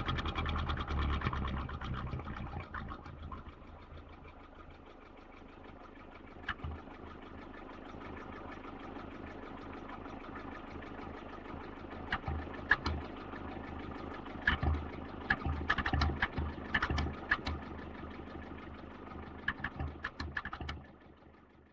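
Vintage car engine slowing from driving speed down to idle, fading over the first few seconds, then idling with sharp irregular clicks and knocks over it from about halfway, until it cuts off at the end.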